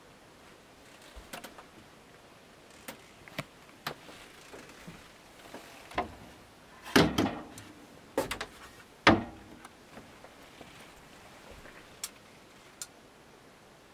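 Wooden cupboard doors around the cooker of a 1966 Cheltenham Waterbuck caravan being closed by hand. Light clicks and taps, then two loud knocks about two seconds apart as the doors bang shut, with a few faint ticks after.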